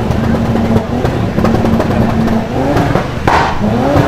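Supercar engine holding a steady note, then revving with rising pitch sweeps and a sharp, bright burst a little over three seconds in.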